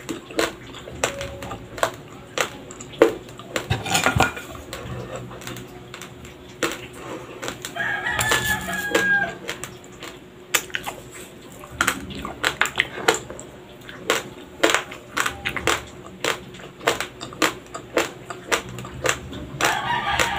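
Close-miked chewing of raw, uncooked Dinurado white rice: many sharp crunches of the hard grains cracking between the teeth. A long pitched call sounds in the background once, about eight seconds in, and another starts at the very end.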